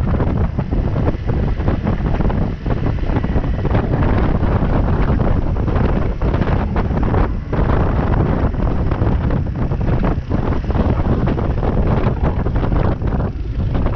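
Wind buffeting the microphone of a GoPro mounted on a moving motorbike, a heavy low rush over the bike's running and road noise. The rush eases near the end.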